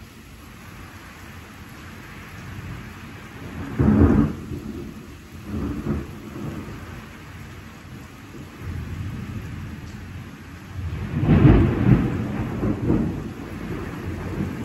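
Steady rain with thunder. A sharp peal comes about four seconds in and a smaller one shortly after, then a longer, louder rolling rumble builds near the end.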